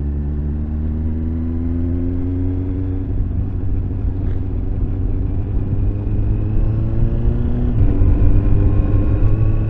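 Motorcycle engine pulling under load, its pitch rising slowly and steadily, with a change in the note about eight seconds in, likely a gear change. A steady low wind rumble runs underneath.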